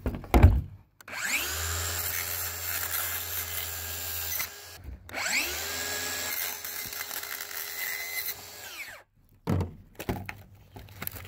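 DeWalt cordless circular saw run twice, about three and a half seconds each: the motor whines up to speed, holds steady while the blade cuts through a plastic blister pack, then winds down. A few knocks of handling near the end.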